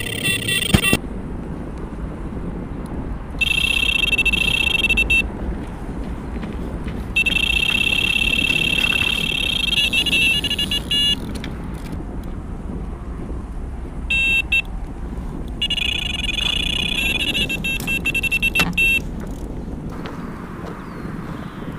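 Electronic carp bite alarms sounding in four bursts of rapid high beeps, each lasting one to four seconds, over a steady low rumble. Near the end, water sloshes around waders as he wades.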